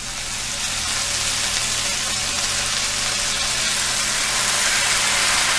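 Onion paste sizzling in hot oil in a frying pan, a steady crackling hiss that swells over the first second as the wet paste goes into the oil.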